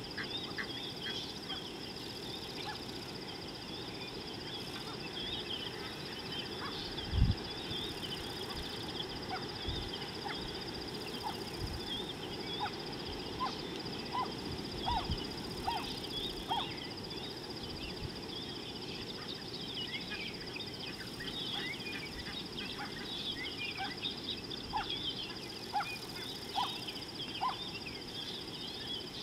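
Birds chirping and calling at an African watering hole, short scattered notes throughout, over a steady high-pitched whine and a low rumble of wind. A single thump about seven seconds in is the loudest sound.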